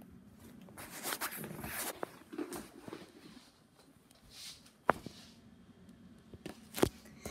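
Rustling and shuffling handling noise with footsteps on a wooden floor, then two sharp knocks about two seconds apart.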